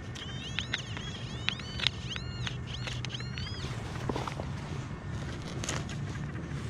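Small birds chirping: a run of quick rising-and-falling chirps in the first half, with a few sharp clicks and a steady low hum underneath.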